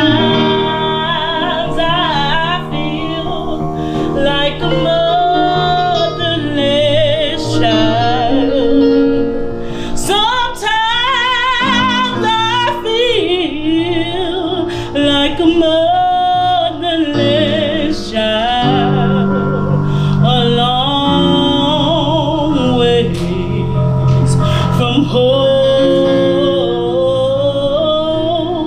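A woman singing a slow song, holding long wavering notes, over instrumental accompaniment.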